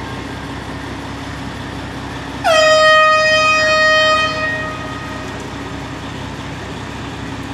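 A vehicle horn sounds one long blast of about two seconds, over steady city street traffic noise.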